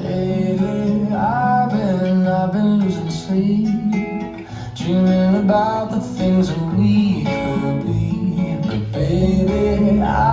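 Recorded pop music with strummed guitar and a melody line, cutting in suddenly as a fading electronic track ends.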